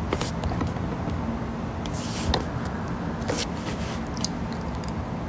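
Steady low room hum with scattered light clicks and taps, and two brief rustles about two and three seconds in.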